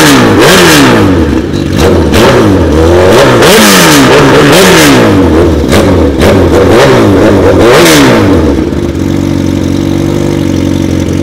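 Sport motorcycle engine with a takeyari-style exhaust, revved in quick rhythmic throttle blips so the pitch rises and falls about once a second, then settling to a steady idle about nine seconds in.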